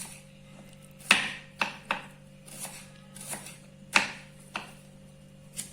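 Kitchen knife chopping shallots on a cutting board: about eight sharp, irregularly spaced knocks of the blade on the board, the loudest about a second and four seconds in.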